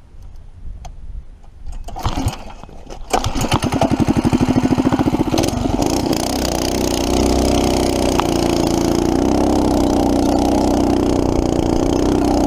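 Predator 212cc single-cylinder four-stroke engine on a minibike-style dirt bike starting after running dry of fuel. It catches about three seconds in with uneven chugging, then settles into a steady running note that steps up slightly around seven seconds as the bike gets going.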